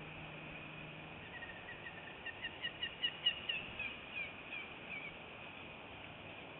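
A bird calling: a series of about fifteen short, high chirping notes over roughly four seconds, building in loudness toward the middle, then slowing and dropping in pitch near the end.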